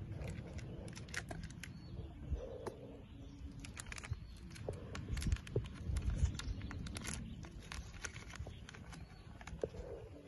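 Outdoor ambience: wind rumbling on the microphone, heaviest around the middle, with many scattered small clicks and crackles throughout.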